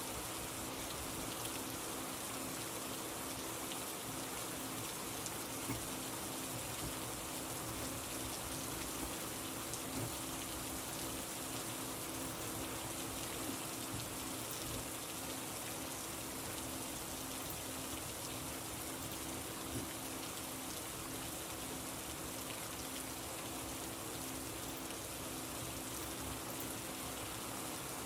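Steady rain falling, an even hiss with a few louder drops here and there, and a faint steady low hum underneath.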